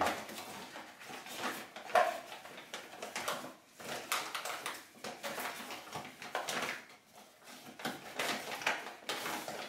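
Plastic bag of dry powder rustling and crinkling in irregular bursts as a hand works inside it, scooping and tipping the powder in a bucket.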